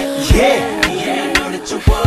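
R&B song with a hip-hop drum beat: a kick about half a second in and again near the end, sharp hits between, under a sliding melody line.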